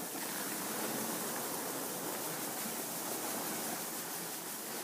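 Polystyrene packing peanuts being poured into a cardboard shipping box: a steady, continuous rustling hiss of many light foam pieces tumbling in.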